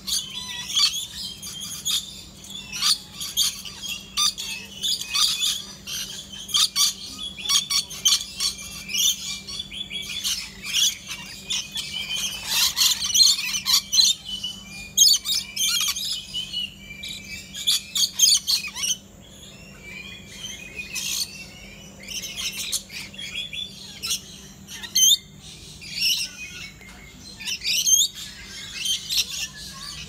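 A flock of rainbow lorikeets and other lories calling without pause as they feed: a dense jumble of shrill, high-pitched chatter and squawks, busiest around the middle, with a faint steady hum underneath.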